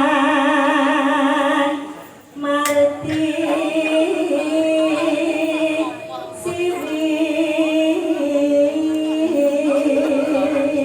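A female Javanese singer (sinden) singing a slow, largely unaccompanied bawa vocal line in long held notes with wavy vibrato and ornaments, breaking off briefly about two seconds in before going on.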